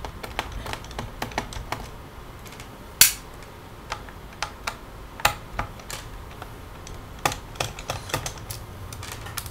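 Irregular small clicks and taps of a Phillips screwdriver working the screws out of a laptop's hard-drive caddy, with one sharper click about three seconds in.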